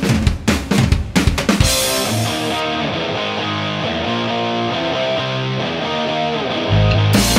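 Background music: a quick run of drum hits, then a sustained instrumental passage of held notes, with bass and drums coming back in strongly near the end.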